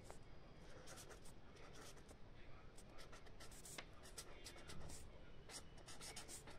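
Handwriting on paper: faint, irregular scratching strokes, many short ones in quick succession.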